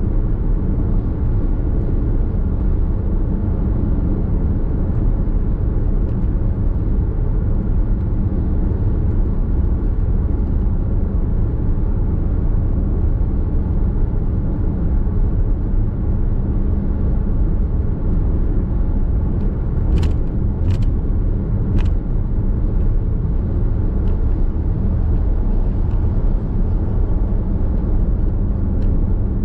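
Steady low road and tyre rumble heard inside the cabin of a Nissan X-Trail Hybrid cruising on an expressway. Three short sharp clicks come about two-thirds of the way through.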